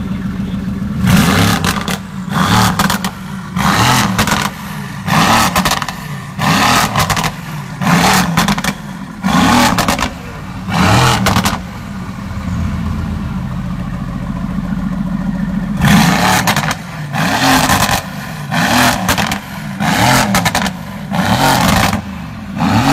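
Mercedes-AMG GT S twin-turbo 4.0-litre V8 through an Fi Exhaust valvetronic catback with catless downpipes, blipped again and again from idle: short, sharp rev bursts about every second and a half. The bursts pause for a few seconds of steady idle about halfway through, then resume.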